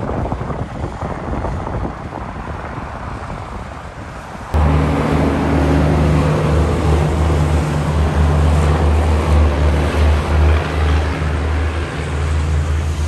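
Wind buffeting the microphone over highway traffic rumble. About four and a half seconds in, it cuts suddenly to the loud, steady low drone of a passing semi-truck's diesel engine.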